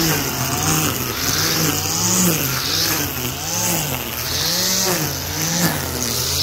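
Handlebar brushcutter engine running and revving up and down, its pitch rising and falling roughly once a second as the trimmer line cuts through tall grass.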